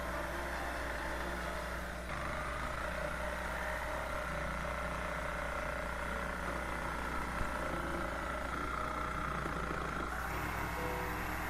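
Jigsaw running steadily, cutting a round hole in a plywood panel; its tone shifts about two seconds in and again near the end.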